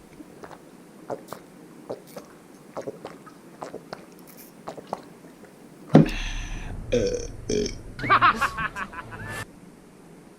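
Small clicks and chewing noises of eating, then about six seconds in a loud, long burp lasting around three seconds.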